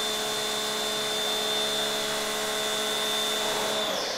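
Steady whirr of a small electric motor with a high, constant whine, stopping about four seconds in.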